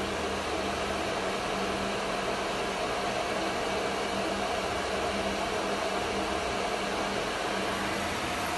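Steady hum and hiss of a CNC woodworking router running with a couple of faint steady tones, during its automatic tool-length measurement.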